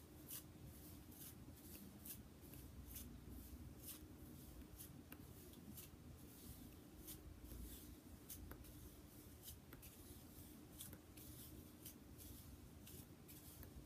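Hairbrush drawn through long hair: faint, repeated scratchy strokes, about two a second.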